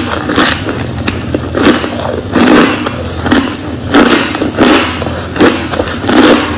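Close-up crunching of crushed ice being chewed, one crunchy bite roughly every 0.7 seconds in a steady chewing rhythm.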